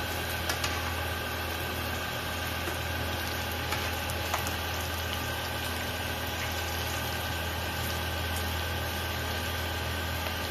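A steady low hum with a few faint pops from cheese balls frying gently in oil over a low flame.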